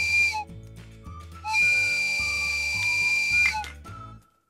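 A whistle sounding in long, steady, high tones, one ending just after the start and another of about two seconds in the middle, over background music that fades out near the end.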